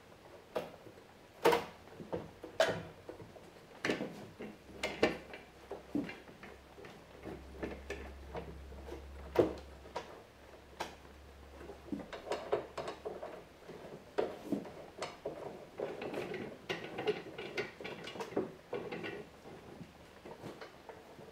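Metal bar clamps being adjusted and tightened on an edge-glued maple panel: irregular clicks, knocks and clanks as the jaws slide on the bars and the handles are turned, bringing the glue joint closed.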